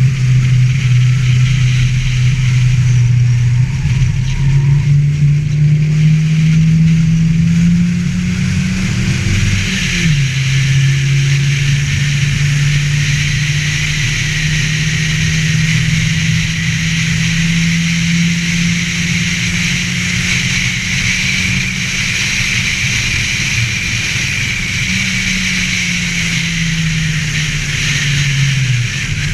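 Ford Festiva race car's engine running hard. The revs climb, fall sharply with a gear change about ten seconds in, hold high for a long stretch, then fall away near the end as the car slows.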